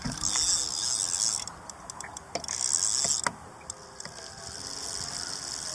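Fishing reel ticking in two quick spells of about a second each, with a few sharp knocks of handling in between.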